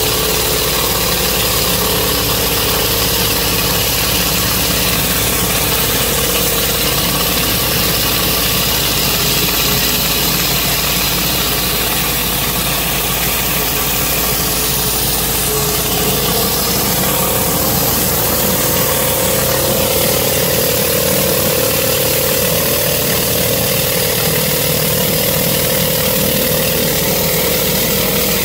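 Pressure washer running steadily while a rotary surface cleaner sprays across concrete: a constant engine-like drone under the hiss of the water jets. The pitch of the drone rises slightly about halfway through.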